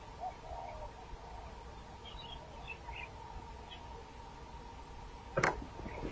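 Quiet pond-edge background with a few faint bird chirps, then a short, sudden splash about five and a half seconds in as a fish is struck and hooked at the float.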